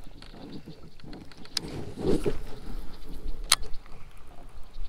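Small waves lapping and slapping against a kayak hull, swelling briefly mid-way, with two sharp knocks about two seconds apart.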